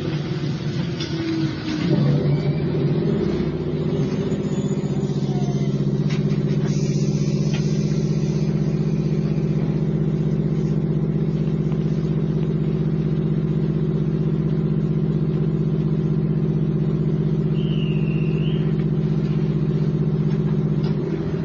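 Interior sound of an electric local train car, recorded inside the carriage: a steady drone of electrical and running-gear hum over a low rumble. It gets louder about two seconds in, then holds even.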